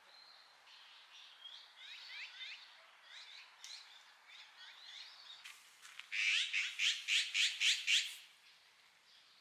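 Small songbirds chirping and twittering among trees. In the second half comes a louder fast run of about eight calls, some four a second.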